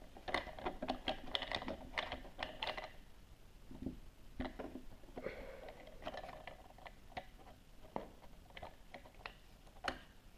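Light plastic clicks and taps from hands working a Play-Doh Diggin' Rigs cutter toy, pressing dough into its hopper and moving its parts: a quick run of clicks for the first three seconds, then scattered ones, with a sharper click near the end.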